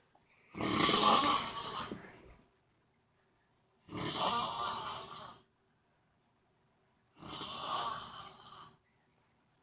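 A man snoring in his sleep: three long snores about three seconds apart, the first the loudest, with near silence between them.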